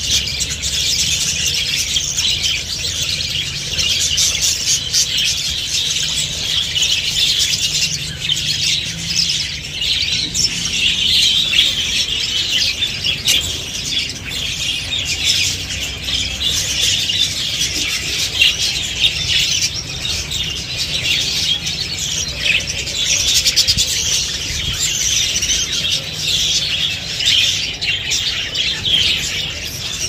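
A large colony of budgerigars chattering and chirping all at once, a steady unbroken chorus of many birds.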